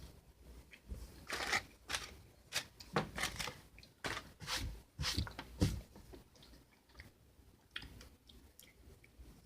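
A person biting into and chewing a sugar-coated Peeps marshmallow, wet, sticky mouth clicks and crunching of the sugar coating close to the microphone. The sounds come thick for the first six seconds or so, then thin out to a few fainter clicks.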